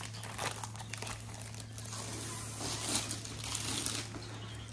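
Clear plastic sleeve crinkling and rustling in her hands as it is slid off a rolled diamond-painting canvas.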